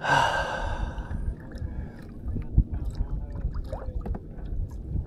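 Water sloshing and gurgling against a fishing kayak's hull, with scattered small knocks and one sharper thump about two and a half seconds in.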